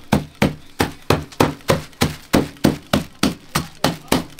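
Rhythmic chopping: a blade striking a chopping block about three times a second in a steady run.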